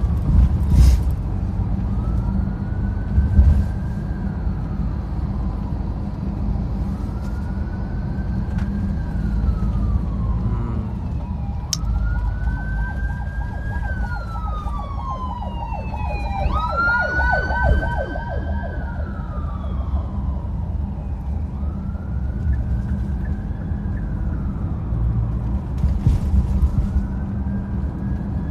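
An emergency vehicle's siren wailing, rising and falling about every three seconds, loudest around the middle, where it briefly switches to a fast warble. Beneath it runs the steady low rumble of road noise, heard from inside a moving car.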